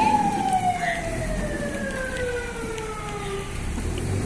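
A siren wailing, its pitch falling slowly and smoothly for about three and a half seconds before it fades out.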